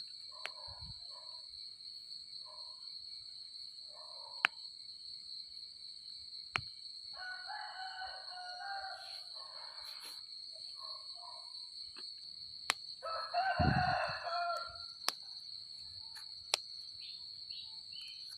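Rooster crowing twice, about six seconds apart, with a few shorter calls before. Under it runs a steady high-pitched drone of night insects, with a few sharp clicks.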